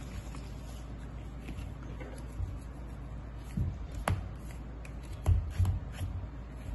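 Hands handling a small ball at a wooden table: rustling, with a few sharp clicks and dull knocks in the second half.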